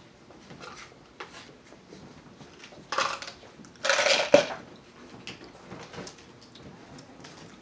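Light clinks of cutlery and plates, broken about three seconds in by two short, loud bursts of sound from the man at the table, the second coming about a second after the first and louder.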